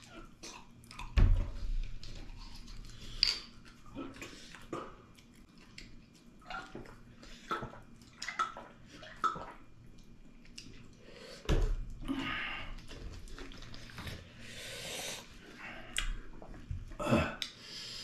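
Close-up eating sounds: chewing and lip-smacking with scattered clicks, and a plastic water bottle being handled and drunk from. Two dull thumps come about a second in and again a little past the middle.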